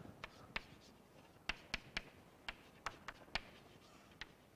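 Chalk writing on a blackboard: faint, sharp taps of the chalk striking the board, about ten at an uneven pace, with light scraping between them.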